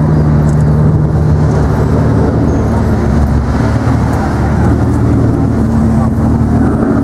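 Aston Martin engine running steadily at low revs, a deep even note heard close up.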